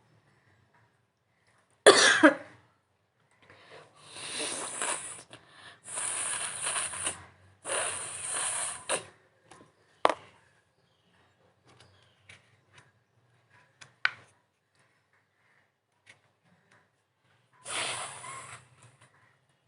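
A person sneezes once loudly, then blows their nose hard three times in quick succession, each blow a rush of air lasting over a second. Two sharp clicks follow, and near the end comes a fourth hard nose blow.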